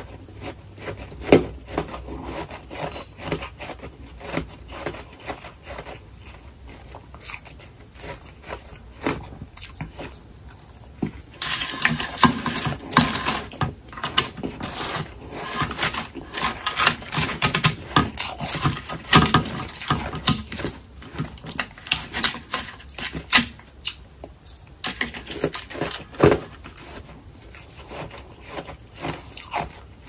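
Humidifier freezer frost crunching and crackling as it is chewed and broken apart by hand. A denser, louder stretch of crackling and scraping comes in about eleven seconds in and lasts about twelve seconds.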